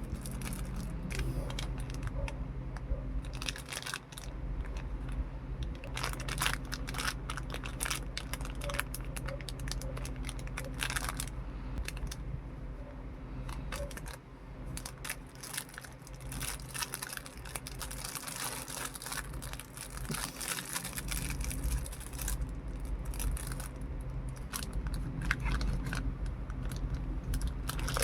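Packaging being handled while an action figure is unboxed: irregular crinkling and rustling with many small clicks and taps, over a steady low hum.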